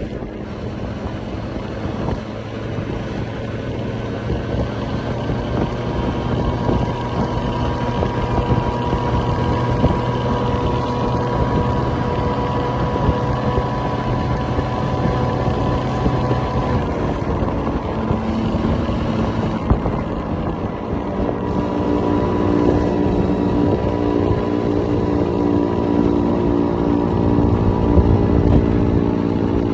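Small scooter engine running steadily while riding, with wind buffeting the microphone; the engine note shifts and grows louder in the last third.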